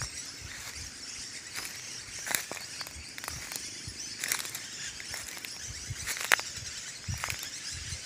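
A flock of small parrots calling from the trees in short, sharp screeches: three stand out, about two, four and six seconds in, the last the loudest. A steady high insect hiss and soft low thumps of walking run underneath.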